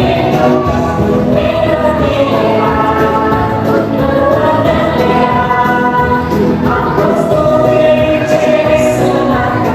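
Music: a song sung by several voices together over an instrumental backing track, playing steadily throughout.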